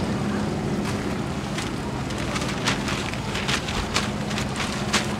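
Pakoras deep-frying in large karahis of hot oil, a steady sizzle over a low hum. From about a second and a half in comes a quick run of short clicks and knocks of ladles and scoops against the metal woks.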